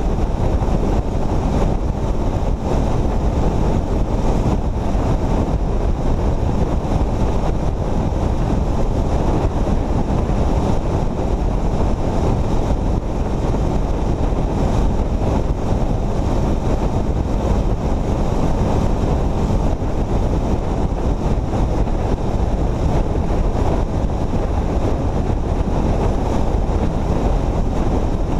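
Wind rushing steadily over a camera microphone on a vehicle travelling at highway speed, mixed with the low rumble of the vehicle and its tyres on the road.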